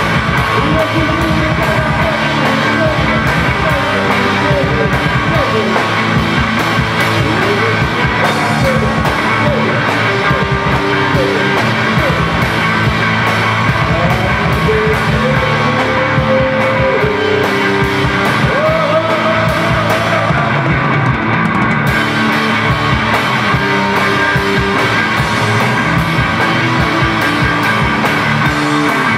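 Live rock band playing with a drum kit, electric guitar and a singer.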